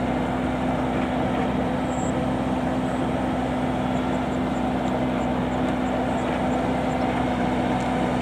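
Engine of a homemade Vietnamese combine harvester running steadily at constant speed, with an even hum.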